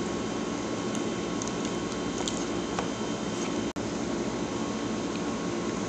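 Steady droning room noise with a few faint light clicks; the sound briefly cuts out a little past the middle.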